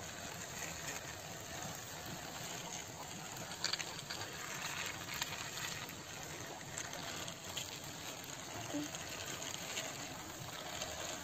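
Plastic wheels of a toy tractor and trailer rolling over rough concrete as it is pushed along by hand: a faint, steady gritty rolling noise with a few small clicks.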